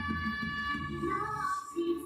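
Pop song: a high female voice sings a long held, gliding phrase over a backing track.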